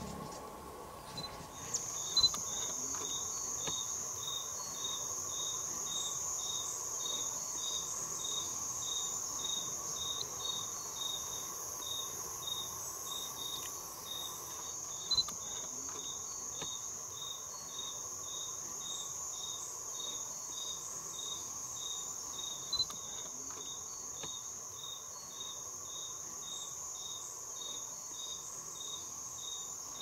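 Insects stridulating in a continuous high-pitched buzz, with a separate call of short pulses repeating about twice a second. A few sharp clicks stand out over it.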